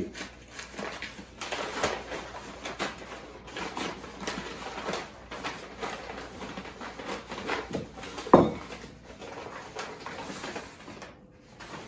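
Heavy packing paper rustling and crinkling as a glass is unwrapped and lifted out of a cardboard box, with one louder, sharp sound about eight seconds in.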